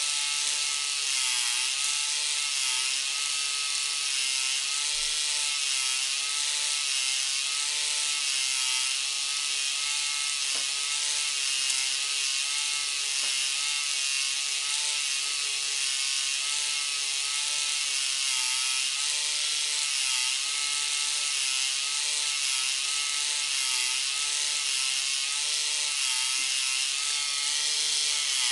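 K'nex ride's electric motor and plastic gears running hard, a continuous whirring rattle with a hum whose pitch wavers up and down in a steady cycle as the spinning arm goes round.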